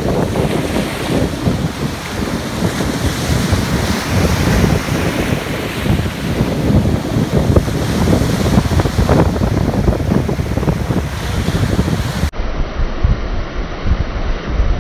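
Ocean surf breaking and washing, with wind buffeting the phone's microphone in a heavy low rumble.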